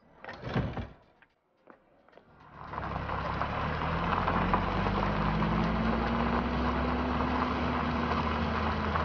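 A motor vehicle engine running steadily, coming in about two seconds in, its pitch rising slightly and falling back. A short noise comes just before it, near the start.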